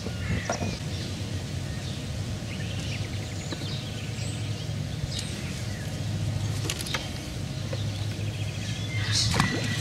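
Birds chirping over a steady low rumble on an open riverbank. Near the end a feeder rod is cast, with a short, louder rush of sound as the line goes out.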